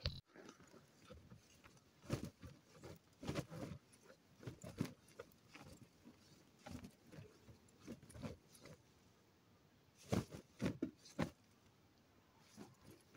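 Open umbrella rustling and knocking as it is handled around a young horse: irregular soft knocks and rustles, with a louder cluster of knocks about ten seconds in.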